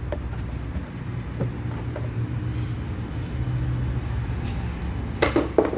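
A low steady rumble with a few light clicks, then a quick run of loud sharp clacks about five seconds in as the plastic engine cover is pulled off.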